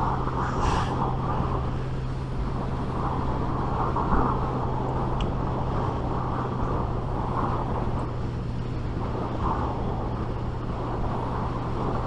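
Suzuki GSX 750 inline-four motorcycle engine holding a steady pitch while cruising, heard from inside a helmet under loud wind and road rush. The helmet lets in so much noise that the rider calls it extremely loud.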